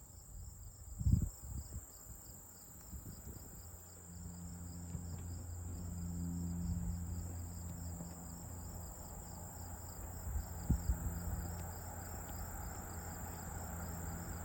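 Insects chirping in a steady, fast-pulsing high drone, under a faint low engine rumble that swells from about four seconds in and holds. Two brief soft thumps, about a second in and near the end.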